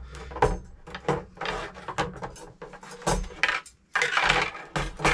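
Dog-G8 folding dog gate being collapsed by hand: a run of clicks and clattering knocks from its folding parts, with scraping and rustling in between.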